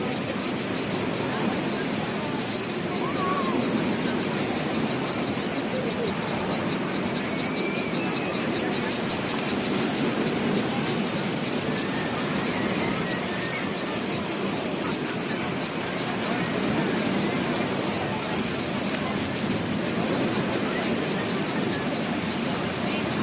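Insects trilling steadily in a high, fast-pulsing chorus over a continuous wash of surf on a beach.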